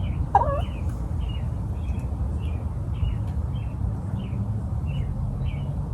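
Bird chirping, short high chirps repeating about twice a second, over a steady low rumble, with one lower call just after the start.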